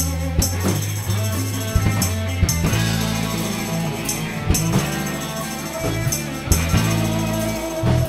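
Live band playing an instrumental passage: electric guitar over sustained low notes and a drum kit, with sharp cymbal-like hits every second or two.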